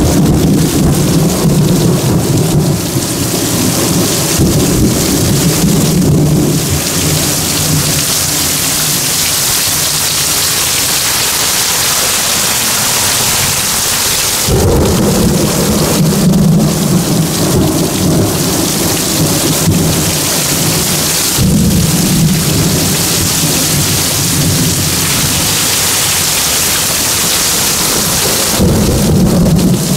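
Heavy rain pouring steadily, with thunder rumbling several times: at the start, coming in suddenly about halfway through, and again near the end.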